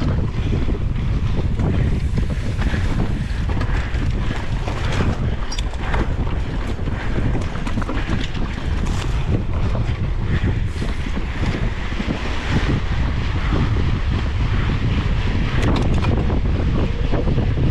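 Wind rushing over a handlebar-mounted GoPro's microphone on a mountain bike ridden at race pace, with a steady low rumble from the tyres on the dirt track and scattered rattles from the bike.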